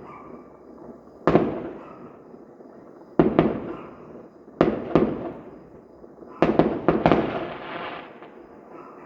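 Fireworks exploding: a sharp bang, then two pairs of bangs, then a quick volley of about five bangs near the end, each one trailing off in a rolling echo lasting about a second.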